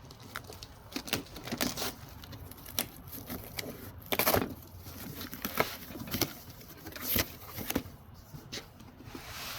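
Irregular rustling, crackling and clicking, with the loudest burst about four seconds in.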